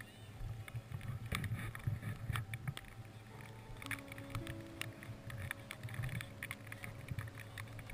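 Walking along a wet, muddy track with gear on: scattered clicks and rustle of kit and footsteps, over an uneven low rumble of wind on the microphone.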